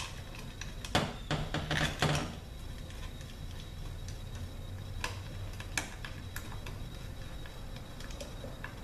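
Small metallic clicks and taps as steel bolts are picked up and set into the bolt holes of an automatic transmission valve body: a cluster about a second in, then a few lighter ticks, over a low steady hum.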